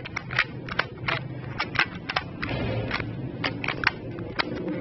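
Quick, irregular plastic clicks of a Ju Xing 3x3 puzzle cube being turned in the hands, about three to four clicks a second.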